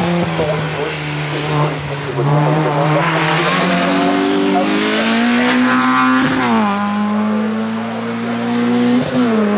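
Hill-climb race car's engine pulling hard up the hill, the revs climbing, dropping sharply at a gear change about six seconds in, then climbing again with another quick dip near the end.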